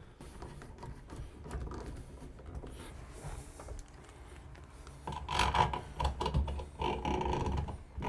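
Hand screwdriver driving the screws that hold a shower valve's chrome escutcheon plate to the wall: light clicking and scraping of metal, louder and busier from about five seconds in.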